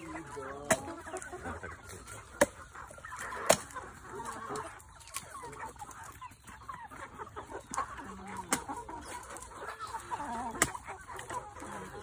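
Chickens clucking, with several sharp knocks of a blade chopping into green coconuts, the loudest about three and a half seconds in.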